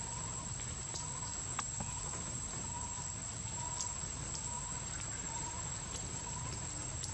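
Steady outdoor background noise with a faint high note repeating about twice a second and a few small ticks.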